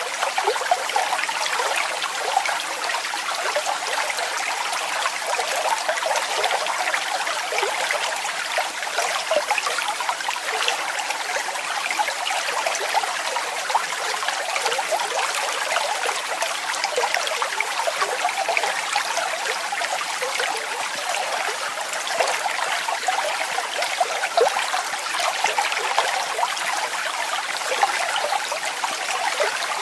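Waterfall, water falling and splashing in a steady, unbroken rush, bright and hissy with little deep rumble.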